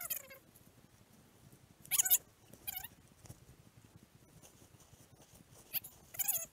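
An animal's short, high-pitched calls, each falling slightly in pitch, coming in small groups: at the start, about two seconds in, and twice near the end.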